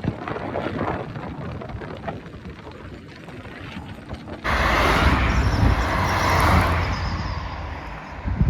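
Car driving on the road, with tyre and cabin noise. About halfway through a loud rush of wind and deep rumble starts suddenly, then fades off near the end.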